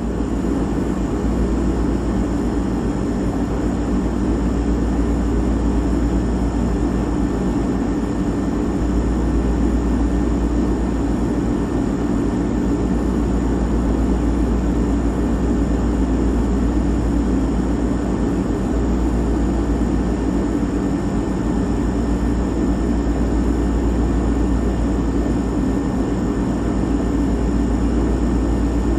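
Refrigerator running with a steady low hum and drone of its compressor, unchanging throughout.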